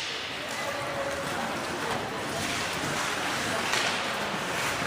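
Ice hockey game noise in a rink: a steady rushing wash with a few sharp knocks.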